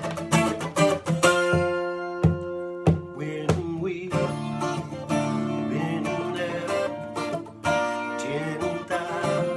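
Guitar playing a slow hymn, with plucked and strummed chords. From about four seconds in, sustained wavering notes come in, which may be a voice singing over the guitar.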